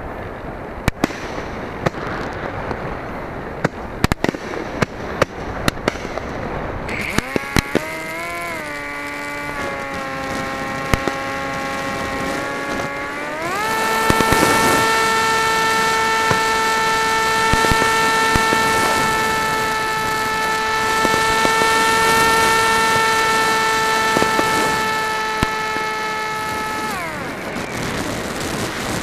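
Fireworks crackle and pop in sharp cracks over wind noise, recorded from the RC flying wing's onboard camera. About seven seconds in, the wing's motor and propeller come in with a steady hum. The hum steps up to a higher, louder pitch about halfway through as the throttle is opened, then glides down and cuts out near the end.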